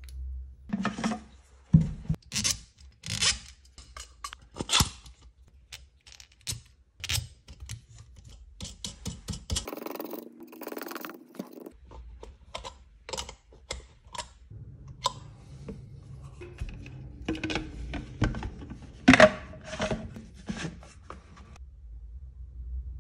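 Parts of a home-made electrolysis cell being handled and fitted together: irregular clicks, taps, knocks and scrapes of stainless steel plates, threaded rods and a plastic water-filter housing. The sharpest knocks come about two seconds in and again about nineteen seconds in.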